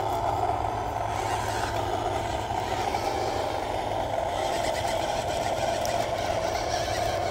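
WPL C74 Suzuki Jimny RC crawler's 370 brushed motor and gearbox whining steadily as the truck crawls over dirt and twigs.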